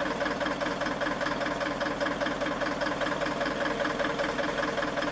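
Crawler dozer's diesel engine idling steadily, not yet warmed up. Exhaust is leaking out through the grille instead of the stack, which the owner guesses is the exhaust manifold gaskets or the manifold itself.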